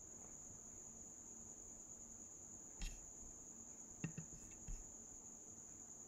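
Near silence: faint background hiss with a steady high-pitched whine, and a few soft clicks in the middle.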